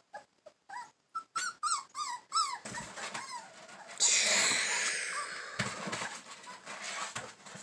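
Dog whining in a run of about eight short, high whimpers, each rising and falling in pitch. About four seconds in comes a sudden loud breathy hiss that fades over a second or so.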